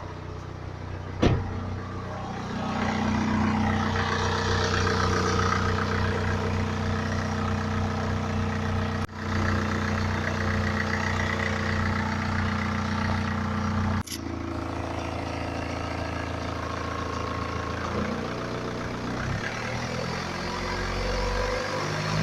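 BMW N47 2.0-litre four-cylinder diesel in a 2011 318d idling cold, checked for timing chain rattle. There is a sharp click about a second in, and the sound cuts out briefly twice. Near the end the revs begin to rise.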